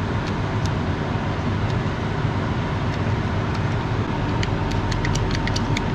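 Room air conditioner running with a steady whooshing hum. Near the end comes a quick run of light, sharp clicks, several a second.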